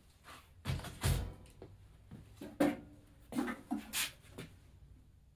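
Handling noise at a workbench: a series of knocks and clunks, some with a short metallic ring, as tools are put down and picked up beside a steel exhaust pipe.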